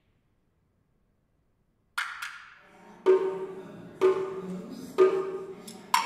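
Taiwanese pak-koan wooden clapper, with live electronics, starting about two seconds in with a quick double clack and then clacking about once a second in a steady pulse. Each clack is followed by a sustained pitched ring.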